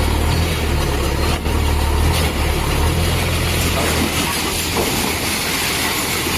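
Heavy machinery engine running with a steady low drone under loud, dense noise; the drone drops away about four seconds in.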